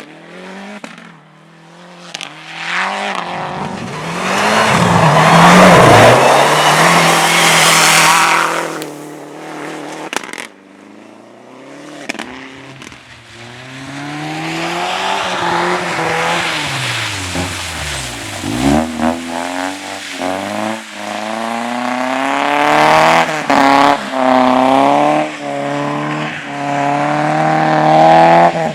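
Race car engines running hard on a circuit. One car comes close and passes loudly with its tyres and engine, and another engine then revs up and down in quick repeated swings as it is driven through corners.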